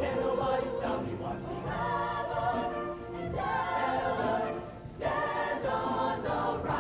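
Mixed show choir singing sustained chords in harmony, with a short break about five seconds in before the next phrase.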